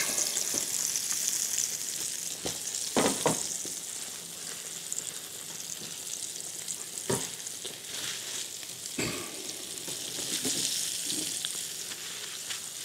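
Sardines frying in olive oil in a pan, sizzling steadily, with a few light knocks of utensils or cookware.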